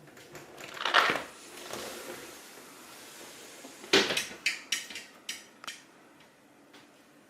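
A cat pouncing and batting at a moth: a brief scuffling rush about a second in, then a sharp knock just before four seconds followed by a quick run of about six taps and clatters on hard surfaces.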